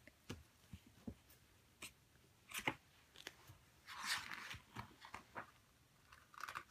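Faint taps and rustles of hands on a paper picture book's page, scattered soft clicks with a couple of brief noisy rustles about two and a half and four seconds in.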